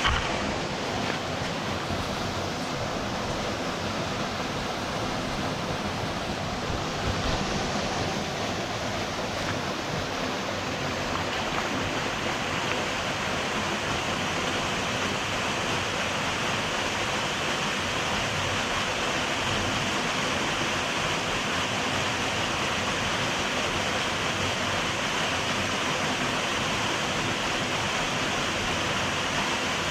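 Rushing water of a small waterfall: a steady, even hiss that grows slightly brighter partway through.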